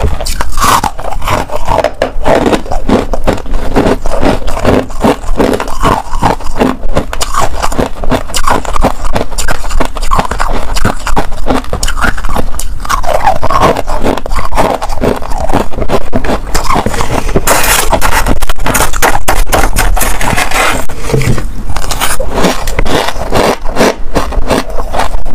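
Hard ice being bitten and chewed close to the microphone: a loud, continuous run of sharp, irregular crunches.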